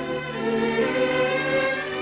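Slow instrumental background music: held notes shifting in pitch over a steady low drone.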